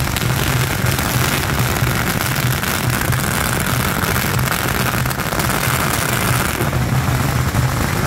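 A long hanging string of firecrackers going off in a dense, continuous crackle, with a steady low drone underneath.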